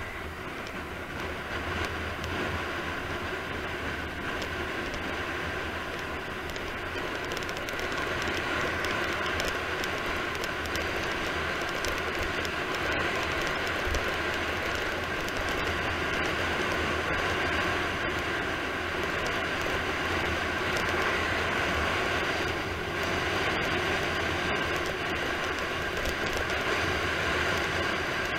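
Steady rush of wind over the microphone with tyre noise on asphalt during a fast downhill road descent, growing a little louder about eight seconds in.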